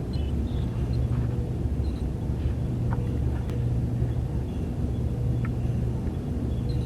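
Science-fiction starship ambience sound effect: a steady low rumbling hum, with a few faint short high beeps over it.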